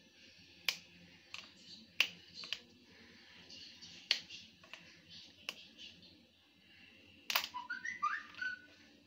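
Faint, sharp snaps, one every second or so, as pieces of chocolate are broken apart by hand. About eight seconds in come a few short, rising, whistle-like chirps.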